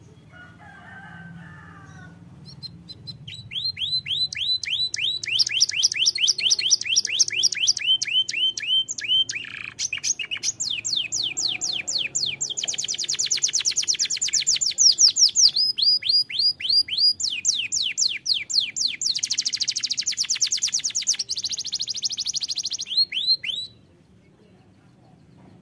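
Domestic canary singing a long, dense rolling song: fast repeated high notes, each sweeping down, run together in trills whose speed changes from phrase to phrase. It starts after a couple of seconds and cuts off suddenly near the end.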